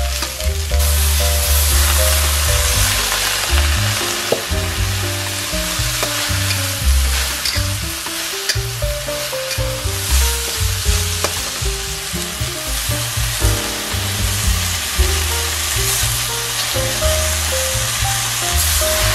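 Vegetables sizzling steadily as they are stir-fried in a hot wok, a metal spatula scraping and tossing them with an occasional clink, over a background music track.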